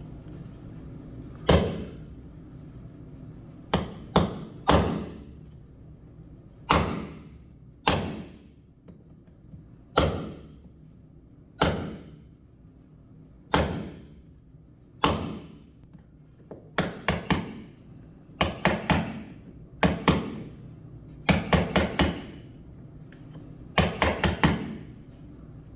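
Hammer striking a chisel, cutting wood out of a door frame to lower a deadbolt's keep so the latch lines up. Single sharp blows a second or two apart give way, about two-thirds of the way in, to quick bursts of two to four strikes.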